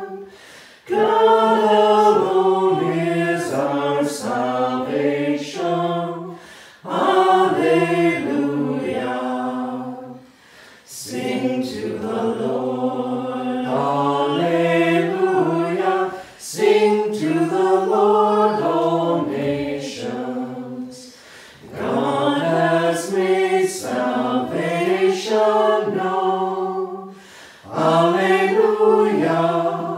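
Unaccompanied hymn sung by several voices, in phrases of a few seconds with short breaks about every five seconds.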